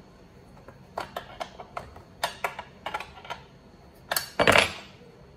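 Wrench work on a compressor fitting: a string of light, irregular metal clicks as the 9/16 wrench turns the fitting off, then a louder, longer metallic clatter about four seconds in.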